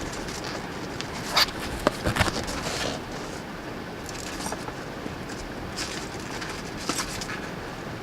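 A key scraping and cutting at the tape and cardboard of a product box, in short crackling bursts of tearing packaging over a steady background hum.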